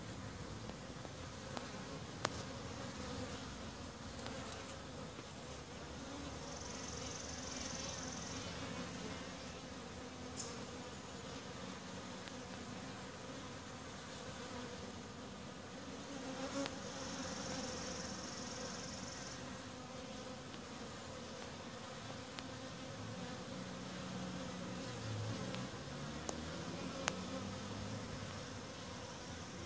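Many honeybees buzzing at a hive entrance: a steady hum, with single bees' buzz rising and falling in pitch as they fly close by. A few sharp clicks.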